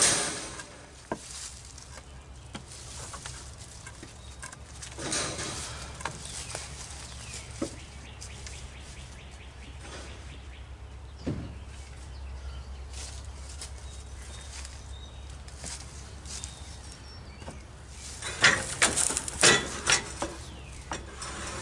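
Scattered knocks and short scrapes of boards and scrap being handled, with a run of louder wooden clattering near the end. A steady low hum sits underneath.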